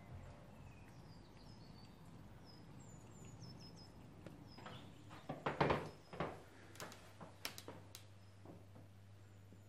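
Faint background with a few thumps and knocks about halfway through, followed by a couple of sharp clicks, and faint bird chirps in the first few seconds.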